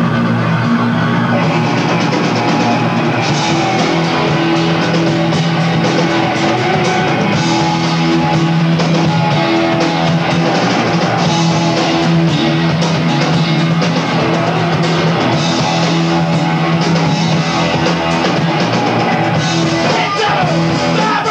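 Live rock band playing: electric guitars and a drum kit, loud and continuous, with no vocals.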